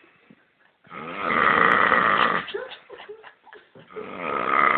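A man snoring loudly in his sleep: one long snore starting about a second in and lasting about a second and a half, then another building up near the end.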